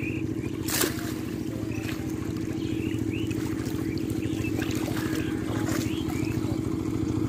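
An engine running steadily with a low, pulsing drone, with short high chirps over it and one sharp knock about a second in.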